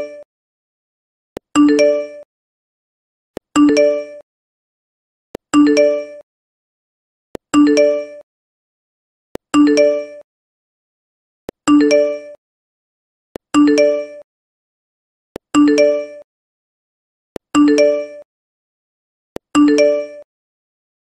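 A chat message notification chime: a soft click and then a short, bright ding of a few notes that fades quickly. It repeats evenly about every two seconds as the messages arrive.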